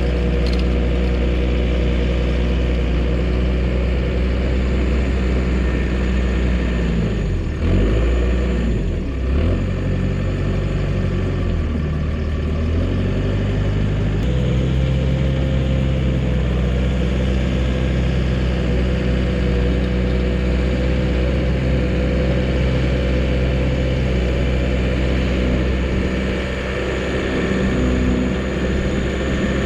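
Dresser bulldozer's diesel engine running steadily as the machine works. Its speed dips and wavers about a third of the way in, then settles at a new steady pitch.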